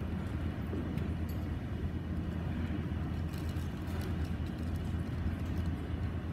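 Steady low rumble of gymnasium room noise from a waiting audience, with a few faint clicks and rustles.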